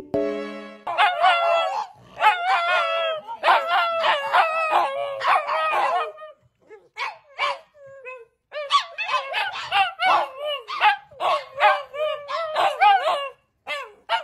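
Pugs making 'pug talk': long, wavering, yowling howls and yips, pitch sliding up and down, in two long runs with a few short calls in a pause between them.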